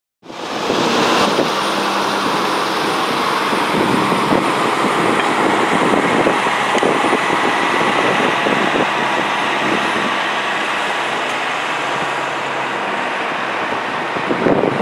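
Steady engine noise from an idling truck, with a few faint knocks.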